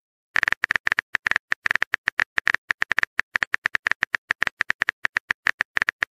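Smartphone keyboard tap clicks from typing a text message: a fast, irregular run of short, crisp clicks, about ten a second, starting a moment in.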